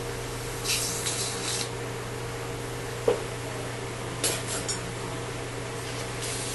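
Surgical hand instruments at work in the open gum flap: a steady equipment hum under a few short hissing bursts, about a second in and again after the four-second mark, and one sharp metallic click near the middle.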